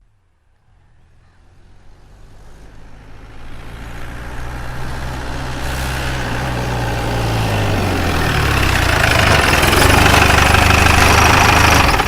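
School bus approaching and slowing down, its engine and road noise growing steadily louder from faint to loud, then dropping off sharply right at the end.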